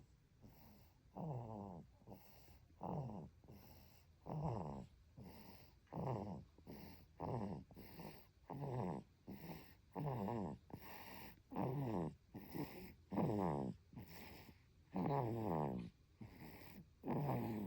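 A baby snoring in deep sleep: a steady rhythm of pitched snores about every second and a half, each sliding in pitch, with quieter breaths in between.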